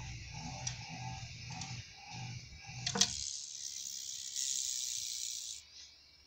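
A rattlesnake's tail rattle buzzing as a steady high hiss for about two and a half seconds, starting right after a sharp click about three seconds in and cutting off suddenly. Before it, a low throbbing sound pulses about twice a second.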